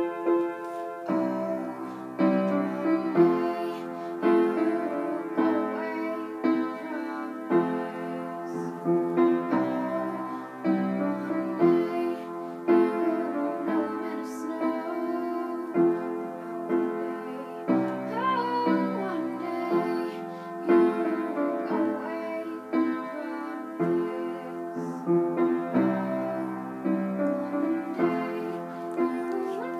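Upright piano played in steady, repeated chords, with a girl's voice singing along at times.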